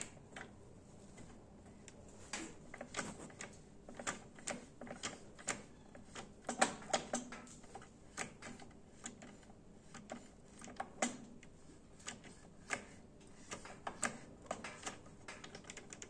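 Irregular light clicks and taps, several a second at times, from the metal linkage rods and ball joints of a homemade joystick on a hydraulic control valve being worked by hand. The engine is not running.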